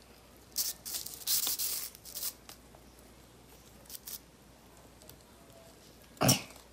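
Black magnetic slime being stretched and pulled apart by hand, giving sticky tearing and crackling sounds: a cluster in the first two seconds, a couple of faint ones midway and a louder one near the end. The slime is clinging and hard to pull off.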